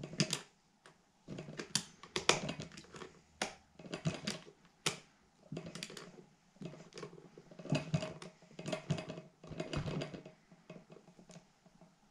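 Irregular small metal clicks, taps and scrapes of hand tools working on an Edelbrock Performer carburetor as a spring-loaded cover is held down and screwed tight.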